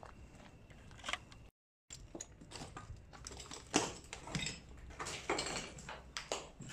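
Footsteps crunching and scuffing irregularly over a floor littered with rubble and debris, with some rustle of clothing. The sound cuts out completely for a split second about a second and a half in.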